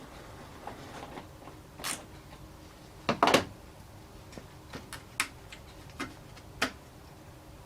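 Scattered clicks and knocks of hand tools and plastic trim being worked on a car's front bumper cover, with the loudest, a quick double knock, about three seconds in.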